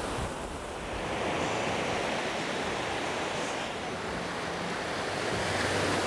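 Surf: small waves washing up onto a sandy beach, a steady rushing hiss that swells a little after about a second.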